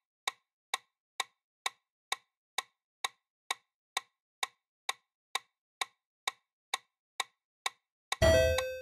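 Countdown-timer tick sound effect clicking evenly about twice a second. Near the end a loud electronic time-up signal with several steady tones sounds over the ticking.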